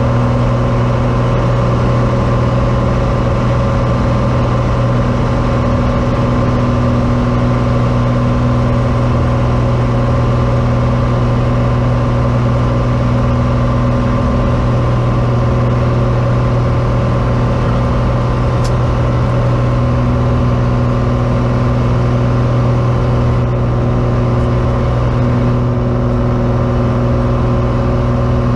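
Cessna 182T's six-cylinder Lycoming IO-540 engine and propeller running steadily at climb power, a constant low drone heard from inside the cabin.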